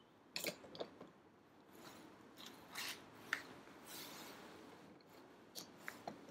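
Faint handling noise as the camera is picked up and moved: scattered light clicks and knocks with short spells of rubbing and rustling.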